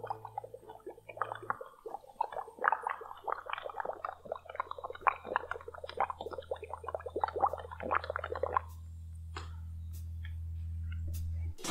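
Methane gas bubbling through soap solution in a funnel, a rapid gurgling, crackling run of bubbles that stops about three-quarters of the way through, leaving a few single pops. A low steady hum grows louder underneath toward the end.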